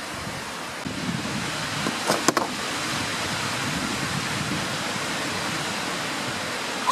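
Steady wind noise rushing across the microphone, with two sharp clicks about two seconds in.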